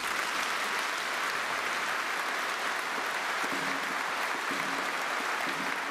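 A large audience applauding steadily in a big arena: dense, even clapping that holds at one level throughout.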